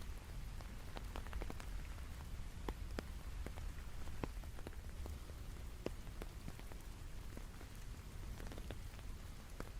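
Rain falling, with individual drops tapping irregularly, some louder and closer than others, over a steady low rumble.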